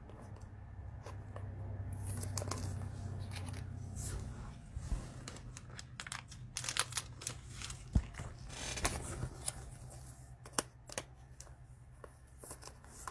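Foil trading-card pack wrapper being torn open and crinkled, with sharp crackles and clicks from the wrapper and cards being handled through the second half.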